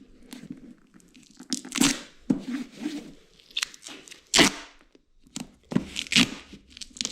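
Duct tape pulled off the roll and torn in a series of short rips, the loudest about halfway through, as it is pressed on to seal an opening on a dirt bike.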